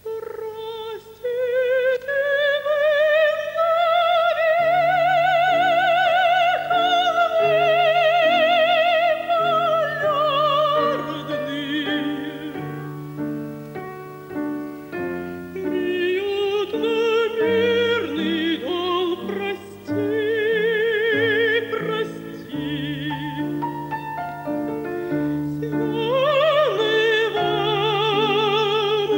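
A woman singing in an operatic style with strong vibrato over piano accompaniment, opening on a long held note that rises and swells over the first several seconds.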